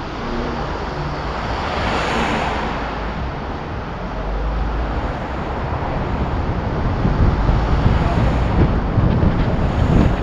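Wind buffeting the microphone of a camera mounted on the outside of a moving vehicle, over road and traffic noise. The low rumble grows louder and gustier from about halfway through.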